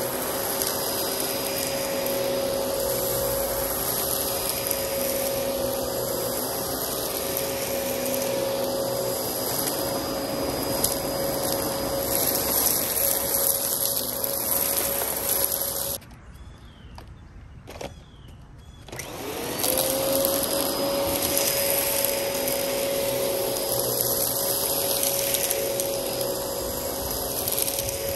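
Dyson DC14 upright vacuum cleaner running steadily with a high motor whine while it cleans fine dirt and fluff from carpet. The sound cuts out abruptly about sixteen seconds in, and after about three seconds the motor spins back up with a rising whine and runs on.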